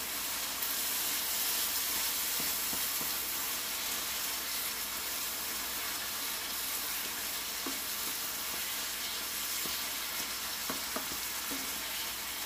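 Ground taco meat sizzling steadily in a skillet while a spatula stirs and scrapes through it, with small scattered scrapes and clicks.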